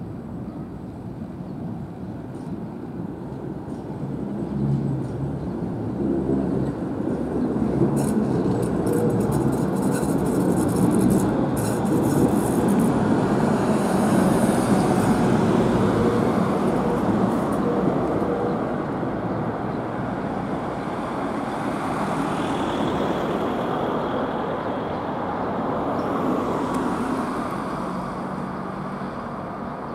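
A former Vienna E1 tram set with trailer passes close by. Its motors hum and its wheels rumble on the rails, building to a peak about a third of the way in and staying loud for several seconds before easing off, with a few sharp clicks as it goes by.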